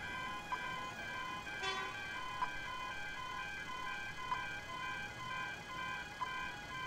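Electronic railway level-crossing alarms ringing with a rapid, evenly repeating ding while the crossing is active. A sharper click comes about every two seconds.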